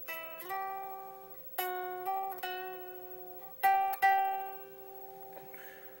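Unplugged Gibson Les Paul electric guitar played one note at a time: about five plucked notes, some slid up two frets from the 7th to the 9th fret, each ringing and fading. The tone is thin and quiet, the sound of the bare strings without an amplifier.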